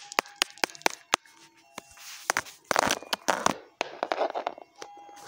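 Small plastic toy figurines being handled: a quick run of sharp clicks and knocks in the first second, then rustling and scraping noises.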